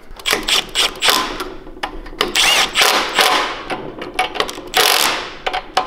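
Cordless power tool spinning a 10 mm socket to run down the nuts that hold the air filter adapter onto a small engine's carburettor. It goes in several short whirring runs that start and stop: a longer one a couple of seconds in and a shorter one near the end.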